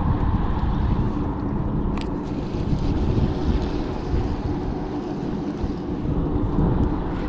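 Wind buffeting the microphone over water washing against the rocks, with a faint steady low hum underneath. A single short click comes about two seconds in.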